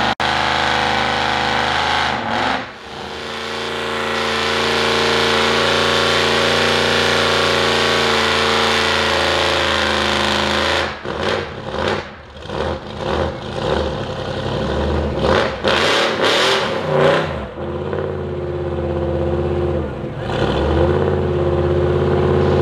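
Big-block Ford 460 V8 of a mud truck, running through open chrome stacks, held at high revs under load in deep mud for several seconds. It is then blipped in a run of short revs, drops back lower, and revs up again near the end.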